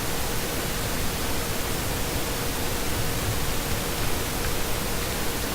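Steady, even hiss with a faint steady hum under it: the background noise of the recording, with nothing else happening.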